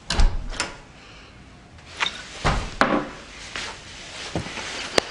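A door thudding shut, the loudest bang right at the start, followed by scattered knocks and bumps.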